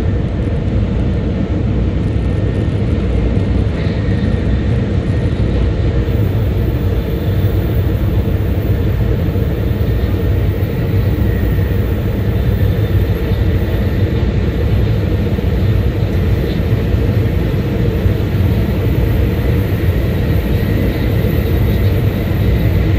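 Steady rumble and rush of an N700-series Shinkansen running at speed, heard from inside the passenger cabin, with a faint steady high whine above it.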